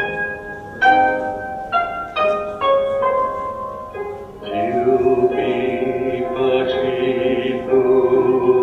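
Music: a run of separate plucked notes, each struck and fading, then longer held notes from about halfway through.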